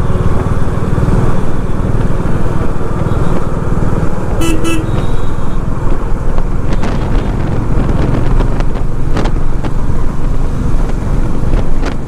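Heavy wind rush and road and engine noise from riding on a motorcycle on a busy road, with a short vehicle horn toot about four and a half seconds in.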